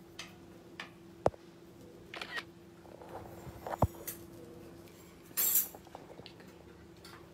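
Cutlery clinking and scraping against a plate as a dish is finished and picked up. There are two sharp clinks about two and a half seconds apart, the second the louder, with brief scrapes and rustles between them, over a faint steady hum.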